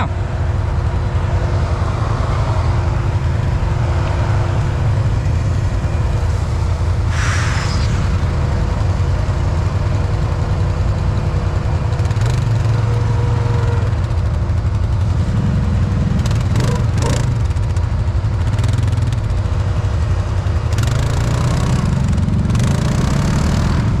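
Can-Am Outlander 1000 XMR ATV's V-twin engine running steadily, its revs climbing briefly about 15 seconds in and again about 21 seconds in, with a few short knocks over it.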